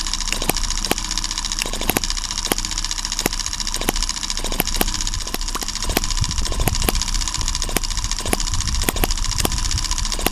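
Tiny M17 1.6cc four-stroke hit-and-miss model engine running, with sharp pops at uneven spacing, a few a second, over a steady mechanical hiss and a faint high whine.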